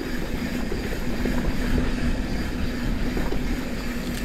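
Santa Cruz 5010 mountain bike rolling along dusty dirt singletrack. The tyres run over the dirt and the bike's parts rattle and click over small bumps, with a steady hum and wind rumble on the camera microphone.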